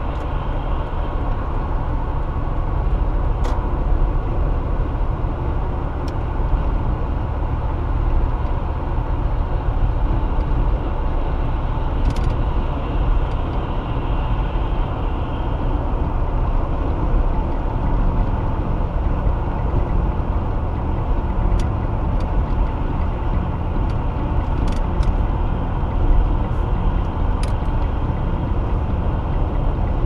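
Steady road noise of a car at highway speed, heard from inside the cabin: tyre and engine rumble, heaviest at the low end, with a few faint ticks.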